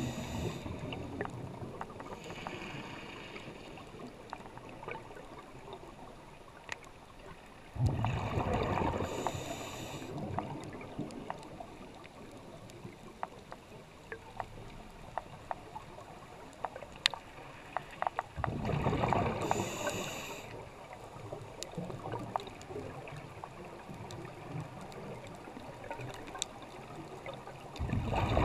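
Scuba diver breathing underwater through a regulator: a gurgling rush of exhaled bubbles with the hiss of the demand valve, coming round about every ten seconds (about 8 s in, about 18 s in and again at the end). Between breaths there are faint scattered clicks.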